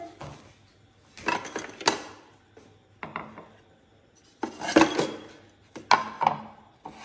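Plates clattering against each other as they are lifted out of a plastic dish drainer and stacked on a stone countertop: four or five short bursts of clinks and knocks with pauses between them.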